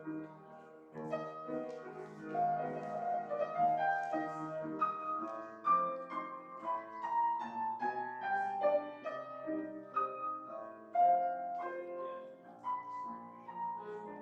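Solo piano music: a slow melodic piece with struck notes left to ring, the melody stepping down through the middle of the passage.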